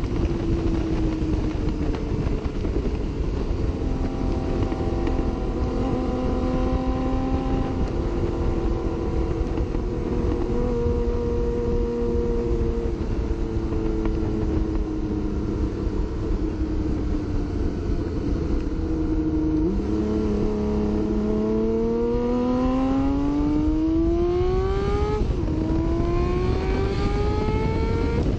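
Honda CBX 1050's air-cooled inline six-cylinder engine under way. The pitch holds fairly level with small steps for most of the time. About two-thirds in, the engine accelerates with a steadily rising pitch, drops sharply at a gear change, then climbs again.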